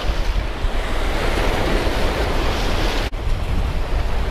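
Waves breaking and washing over rocks at the water's edge, with wind buffeting the microphone as a low rumble. The sound cuts out for an instant about three seconds in.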